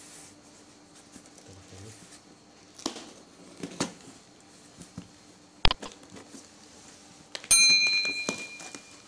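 A knife slitting and rustling the packing tape on a cardboard box, with scattered crinkles. Partway through comes a single sharp click, then a loud bell-like ding that rings on and fades: the sound effects of a subscribe-button animation.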